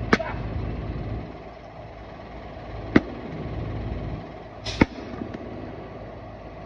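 An axe splitting a round of firewood on a chopping stump: three sharp cracks of the blade striking the wood, just after the start, about three seconds in and about five seconds in.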